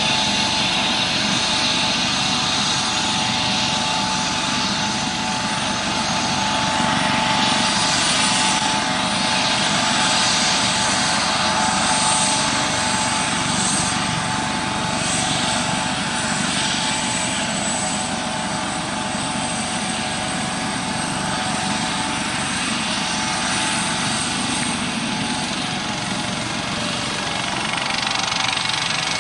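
Eurocopter AS565K2 Panther twin-turbine helicopter running: a steady turbine whine over the rotor noise. Near the end the whine slides slightly lower in pitch.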